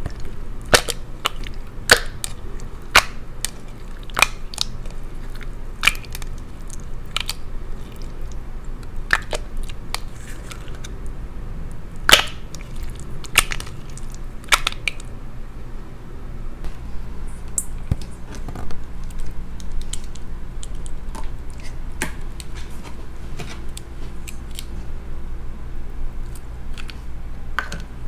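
Clear orange slime being pressed by hand into a small glass cup and squeezed, giving sharp wet pops and clicks as trapped air is forced out, about one a second at first and sparser after about 16 seconds, over soft sticky squishing.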